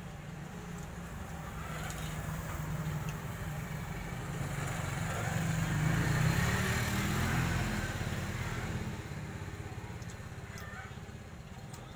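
A motor vehicle's engine passing by, growing louder over several seconds and then fading away.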